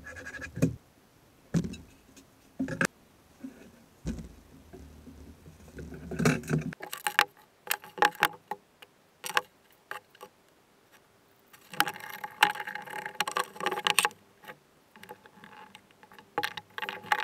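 Workshop handling sounds: scattered clicks, knocks and light metallic clinks of hand tools and parts on a wooden table, with a busier stretch of clatter about twelve seconds in.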